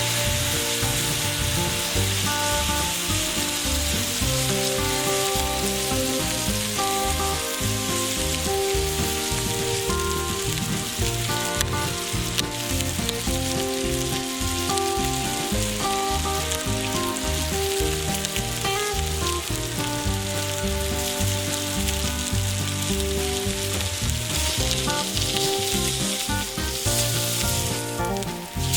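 Steak frying in a pan, a steady sizzle that runs on without a break, with background music underneath.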